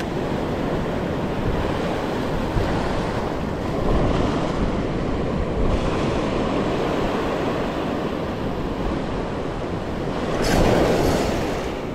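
Ocean surf washing over a rocky reef shelf, a steady rush of water with wind buffeting the microphone. The wash grows louder for about a second near the end.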